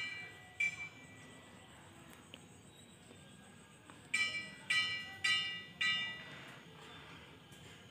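Bright bell-like metallic chimes: two rings at the start, then four more about half a second apart a little past the middle, each ringing briefly and fading.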